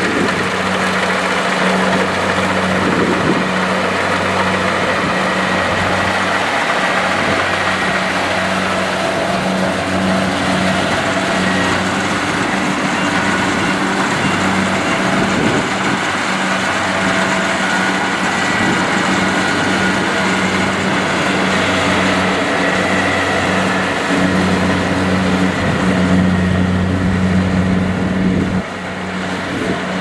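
Kubota DC70 rice combine harvester running steadily under load while harvesting: a diesel engine hum with the clatter and rush of the cutter and threshing mechanism. The sound drops suddenly to a lower level near the end.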